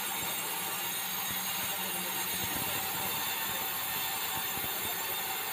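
Large sawmill band saw running steadily while a red meranti beam is fed through it on a roller table: a constant whirring drone with a steady whine.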